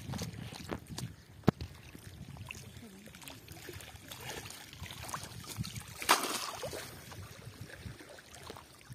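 Small waves lapping at the lake shore, with wind rumbling on the microphone. A sharp click about a second and a half in, and a short louder burst of noise about six seconds in that fades away over a second.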